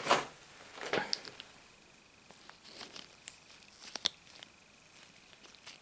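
Gloved hands handling a cardboard box of SPAX screws and picking out a screw: rustling and crinkling of the gloves and box, with a few short sharp clicks of the metal screws, one about a second in and another about four seconds in.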